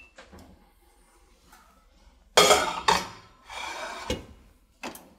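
A heavy cast iron pan going into an oven: a loud metal clatter about two and a half seconds in, then a scrape and a knock as it settles on the oven rack, and a small click near the end.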